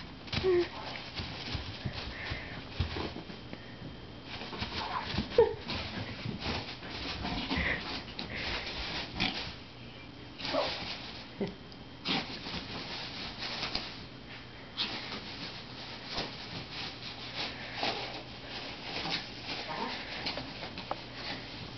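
Pomeranian playing with a plastic bag: the bag crinkles and rustles in rapid crackles throughout, with a few short dog whines.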